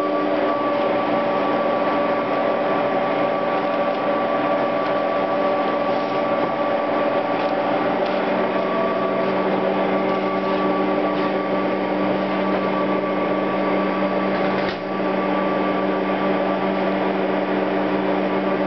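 Dustless chalk making machine running with a steady mechanical hum. A single click comes with a brief dip in the sound about three-quarters of the way through.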